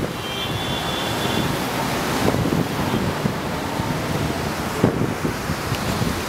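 Sea surf washing and breaking over the concrete tetrapods of a seawall, with wind blowing on the microphone.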